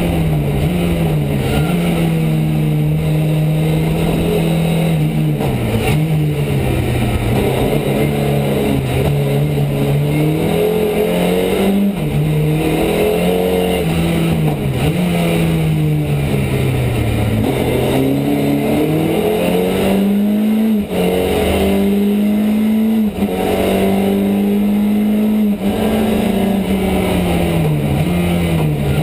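Ford Escort Mk2 rally car's 2.4-litre Pinto four-cylinder engine under hard driving, heard from inside the cabin: the revs rise and fall over and over as it accelerates, lifts and changes gear. There are two brief lifts in engine note about two-thirds of the way through.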